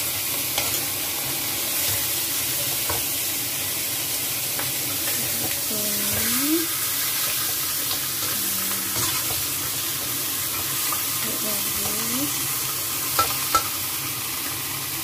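Whole chicken frying in a little hot oil in a wok: a steady sizzle, with stirring and scraping in the pan and two sharp taps close together near the end.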